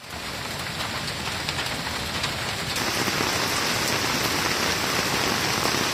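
Heavy rain falling steadily, a dense even hiss that grows a little brighter about halfway through.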